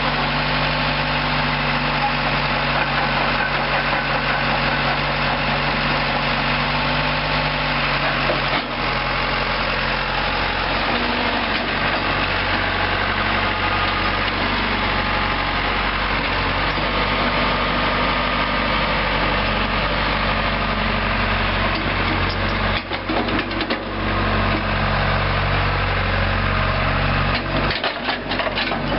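John Deere 190E excavator's four-cylinder diesel engine running steadily, its note shifting a few times.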